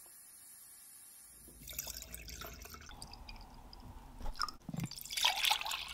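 Clear liquid poured from a jug into a glass jar, splashing and trickling. It starts about a second and a half in and gets louder near the end as the jar fills.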